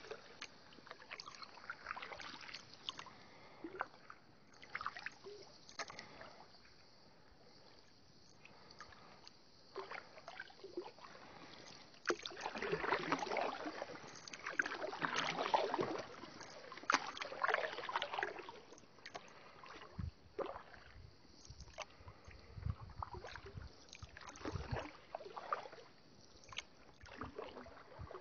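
A wooden paddle working a birch bark canoe on calm water: irregular splashes and drips as the blade dips and lifts, with water trickling along the hull. A louder stretch of splashing comes about halfway through, followed by a few low, dull thuds.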